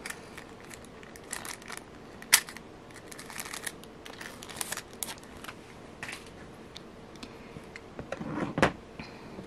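Quiet handling noises of small jewelry-making tools and materials on a work table: soft rustling and scattered light clicks, with a sharp click about two and a half seconds in and a louder clatter near the end as a pair of pliers is picked up.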